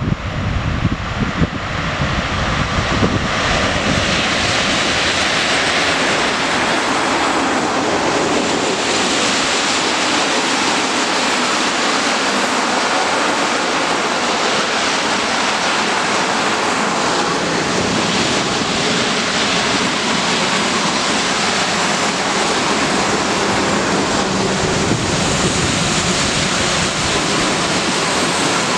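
Freight train of open gondola wagons hauled by an ET22 electric locomotive passing close by. The noise builds over the first few seconds, then the steel wheels run on the rails in a steady, loud rush.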